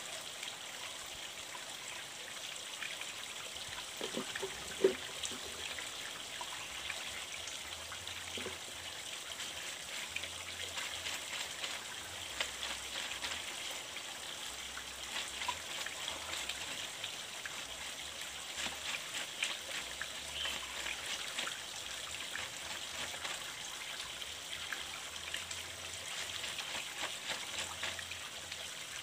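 Water trickling and splashing steadily in a shallow stream, with one sharp knock about five seconds in.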